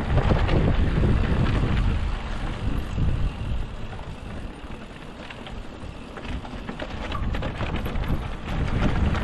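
Wind buffeting the microphone while riding a rough trail, a dense low rumble with scattered rattles and knocks from the ground and the bike. The knocks grow more frequent near the end.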